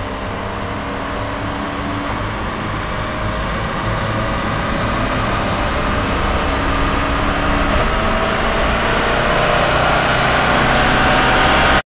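Jaguar F-Type SVR's supercharged 5.0-litre V8 running, its exhaust note growing steadily louder, then stopping abruptly just before the end.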